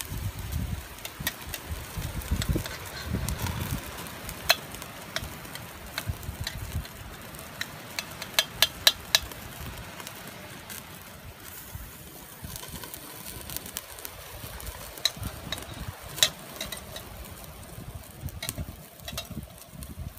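Raw chicken pieces sizzling on a wire mesh over an open fire, with sharp clicks and crackles scattered through, including a quick run of four about eight seconds in. Wind buffets the microphone in the first few seconds.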